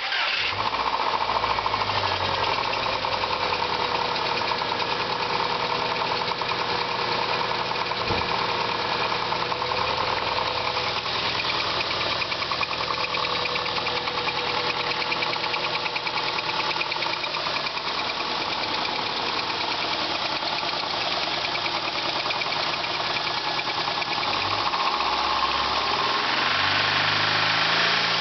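2000 Subaru Legacy GT's 2.5-litre flat-four engine running steadily, with a knocking noise that the owner suspects is rod knock. The engine note rises a little near the end.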